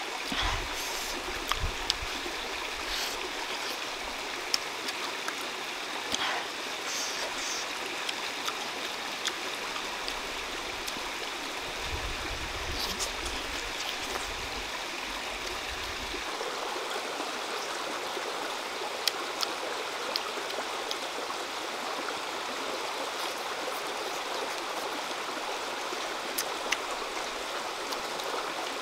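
Steady rushing of a shallow stream flowing over rocks, with occasional short clicks and smacks of close-up chewing.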